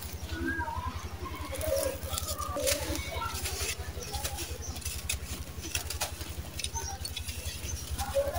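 Dry sand-cement lumps being crushed and crumbled by hand. Many small gritty crunches, with sand and grit trickling through the fingers and pattering down onto a sandy floor.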